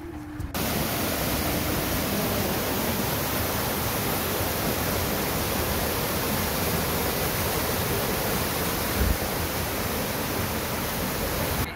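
Mountain waterfall rushing over rocks: a loud, steady wash of falling water that starts abruptly about half a second in and cuts off just before the end. There is a brief low thump about nine seconds in.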